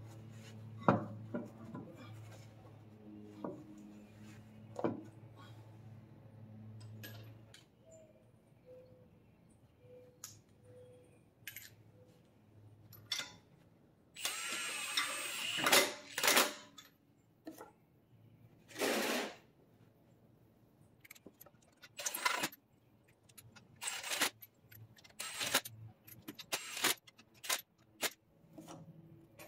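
Metal lug nuts clicking as they are threaded onto a car wheel by hand, then a Milwaukee Fuel cordless impact wrench running in short bursts from about halfway through, spinning the lug nuts onto the wheel studs. The first burst lasts about two seconds and the rest are shorter.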